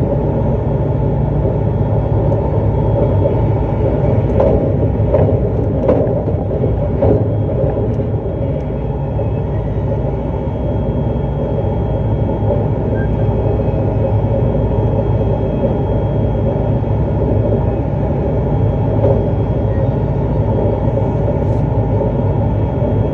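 JR East E259 series Narita Express electric train running at speed: a steady rumble of the wheels on the rails, with a few sharp clicks about five to seven seconds in.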